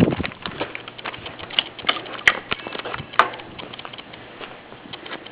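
Microwave oven running with a faint steady low hum, with irregular light clicks and taps over it.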